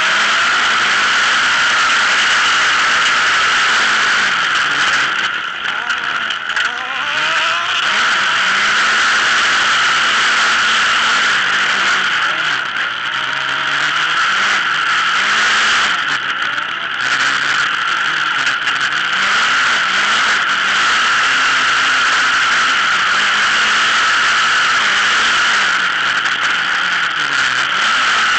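An autocross buggy's engine at racing speed, its pitch rising and falling through gear changes and corners, over a loud steady rushing noise of wind and running gear. It eases off briefly twice.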